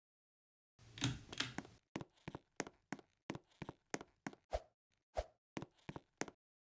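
A brief rustling scrape, then a quick run of sharp taps and knocks, about three a second, stopping abruptly.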